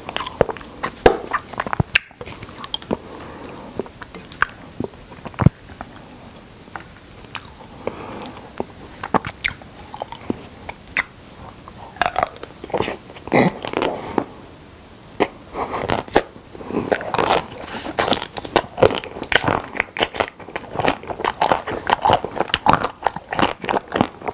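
Close-miked biting and chewing of a frozen Okdongja milk caramel ice cream bar, heard as many short sharp mouth clicks and bites. They are sparse through the first half and come thick and fast from about halfway through.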